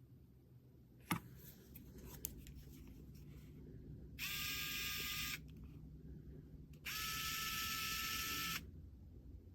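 Small electric screwdriver motor, a Fanttik E1 Max, spinning in two short runs at a steady pitch: about a second, then nearly two seconds. Two sharp clicks come before the runs.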